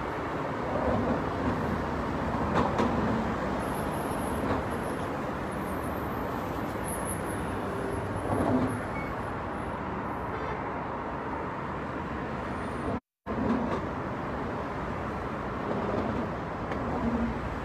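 Steady car and road-traffic noise heard from inside a car, with a few small swells. The sound cuts out completely for a split second about 13 seconds in.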